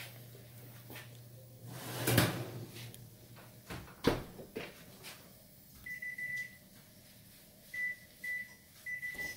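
Kitchen oven sounds: a steady low hum that stops a little before four seconds in, with a knock about two seconds in and a sharp, louder clunk about four seconds in. Then the oven's electronic control panel beeps, one long high beep followed by short beeps and a last longer one.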